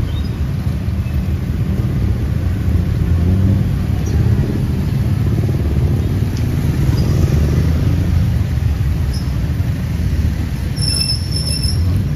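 Steady low rumble of road traffic on a rainy street, with a short high-pitched tone near the end.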